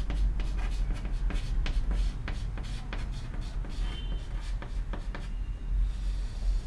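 Chalk writing on a chalkboard: quick taps and scratches of the chalk stick as letters are written, thinning out near the end, with a short high squeak about four seconds in.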